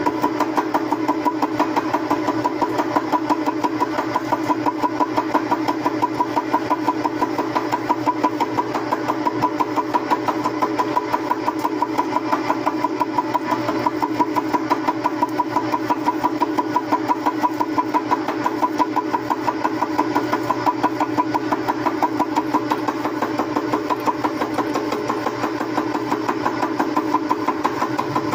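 Milling machine running and cutting metal with an improvised cutter: a steady mechanical drone with a regular beat about three times a second.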